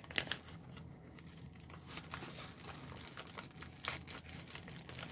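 Mail envelope being torn open and its paper rustled and crinkled by hand, with a few sharp crackles among soft rustling.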